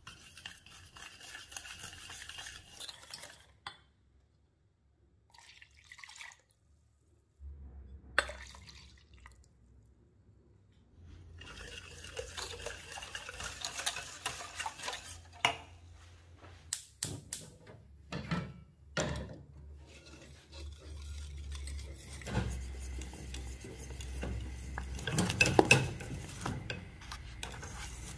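Kitchen utensils clinking and scraping against dishes as ingredients are stirred and mixed, in several stretches broken by short pauses, with a few sharp clinks.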